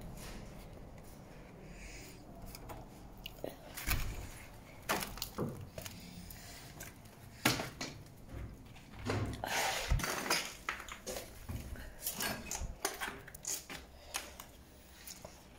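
Irregular clicks, knocks and crunching of someone moving about in a small, bare room, with handling noise on the handheld camera.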